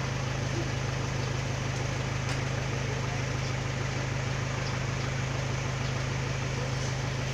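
An engine idling steadily: a constant low hum under a noisy wash, which cuts off abruptly at the end.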